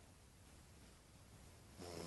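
Near silence in the pause between snores, with a faint hiss. The next snore begins just before the end.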